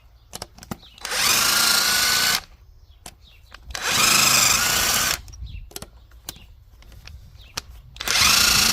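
Cordless power drill-driver run in three short bursts, each spinning up with a rising whine and then holding, unscrewing bolts on the engine. Light clicks between the bursts.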